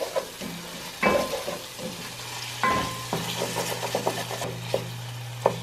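Wooden spoon stirring and scraping a thick spiced sauce sizzling in a stainless steel pot, with two sharp knocks of the spoon against the pot, each with a short metallic ring.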